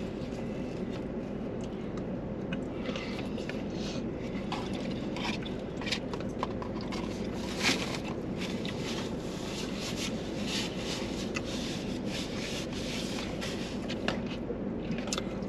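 Eating sounds in a car cabin: a fork scraping and tapping in paperboard takeout boxes, with chewing, over the steady hum of the running car. One sharper click stands out about halfway through.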